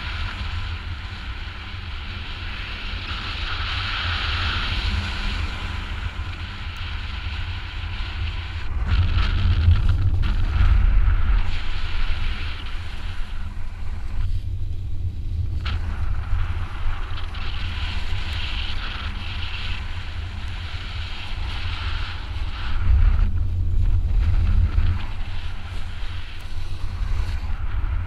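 Wind rushing over a GoPro's microphone during a paraglider flight: a steady low buffeting with a hiss above it, swelling in gusts about nine seconds in and again around twenty-three seconds.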